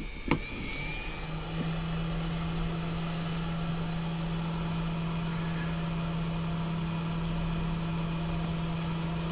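A click near the start, then a hot air rework gun (heat gun) running steadily: a blowing fan with a low hum.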